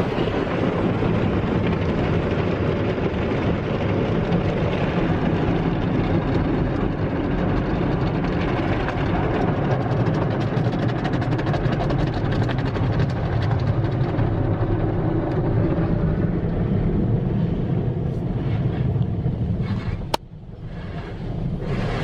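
Automatic tunnel car wash heard from inside the car's cabin: a loud, steady rush of water and soap spraying and washing equipment working over the car. About 20 seconds in it drops off sharply to a quieter, uneven wash.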